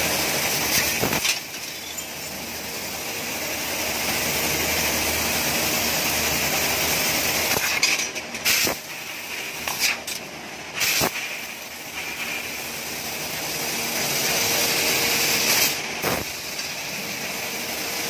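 Fiber laser CNC cutting machine at work: a loud, steady hiss of assist gas at the cutting head, which drops back about a second in and swells again, with several short sharp bursts and abrupt stops and starts around the middle as cuts begin and end.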